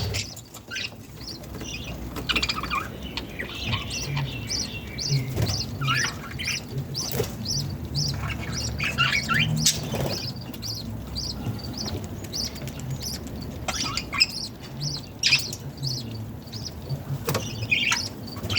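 Budgerigars chirping and warbling, with a steady series of short high cheeps about three a second running under the irregular chatter, over a low hum.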